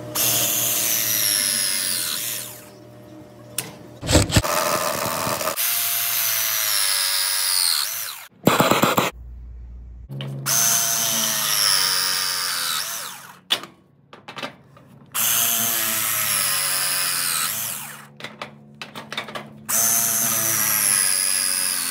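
Battery-powered press tool crimping copper press fittings: about five pressing cycles, each a few seconds of motor whine that sinks in pitch as the jaws close, then stops abruptly.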